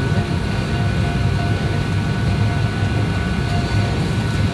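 Steady low rumble and hum of a parked airliner, with a few faint steady tones over it.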